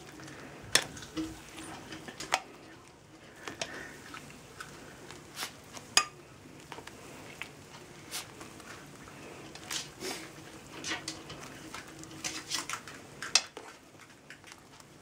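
Metal ladle clinking against a pan and a glass bowl as thick soup is ladled out: irregular sharp clinks, the loudest about a second in, about six seconds in and near the end.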